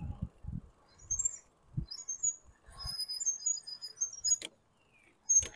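Wind rumbling in gusts on the microphone during a bike ride, with short high chirps through the middle and two sharp knocks about a second apart near the end.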